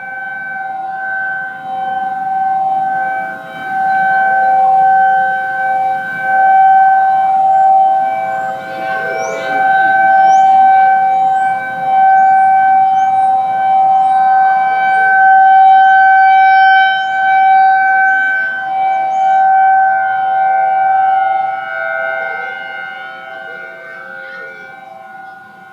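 Outdoor warning sirens (Federal Signal Thunderbolt 1003A, Federal Signal 2001 and ACA Screamer) sounding a steady alert tone from a distance. The held tone swells and fades every few seconds as the rotating siren heads sweep past, and it fades lower near the end.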